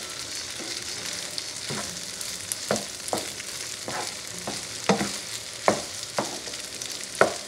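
Rice frying in butter in a pan with a steady sizzle. A wooden spoon stirs and scrapes it, knocking against the pan now and then, more often and louder in the second half.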